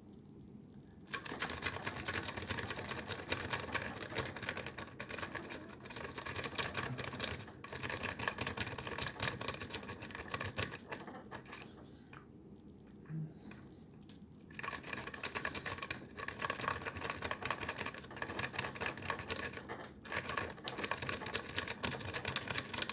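Peterson lock-pick rake being scrubbed rapidly in and out of a five-pin Viking deadbolt cylinder: a dense run of small metallic clicks and scratches as the rake skips over the pin tumblers, stopping briefly twice about halfway through before the raking resumes.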